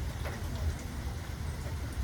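Steady rain falling, with a continuous low rumble underneath and scattered individual drips.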